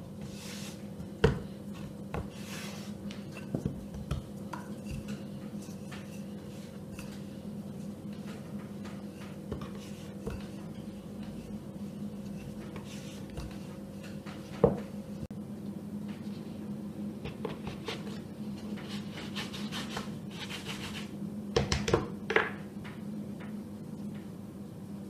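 Knocks and clatters of a wooden rolling pin and plastic cutters on a wooden board while sugar paste is rolled and cut, with short rubbing, hissing stretches between them. The sharpest knocks come about a second in, near the middle, and as a quick cluster near the end, over a steady low hum.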